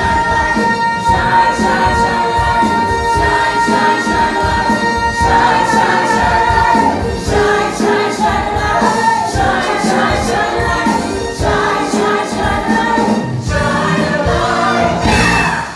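Live musical-theatre number: a female lead singer holds a long high note over the full ensemble chorus and pit band, then sings on with the chorus, and the song ends with a sudden cut-off just before the end.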